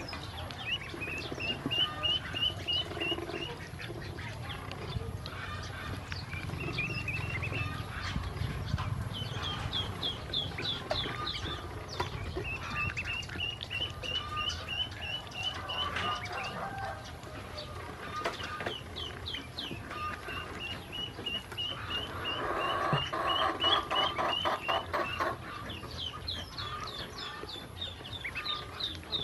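Domestic ducklings peeping in quick runs of high, rapid notes while they feed and drink. About three-quarters of the way through, a louder rapid chattering stands out for a few seconds.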